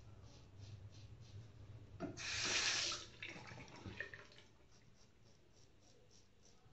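Double-edge safety razor scraping stubble on a lathered neck in short, faint, repeated strokes. About two seconds in, a tap runs for about a second, a loud hiss of water that tails off.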